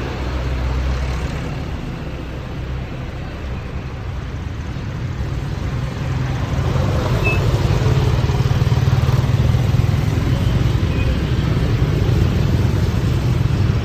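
Bus engine running close by with a steady low hum, growing louder about six seconds in, over road traffic noise.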